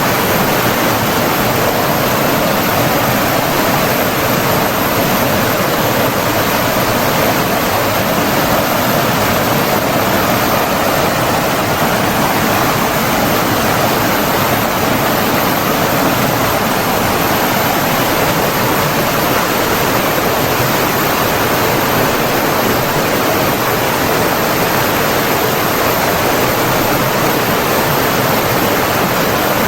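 Flowing stream water rushing steadily and evenly, with no breaks or splashes standing out.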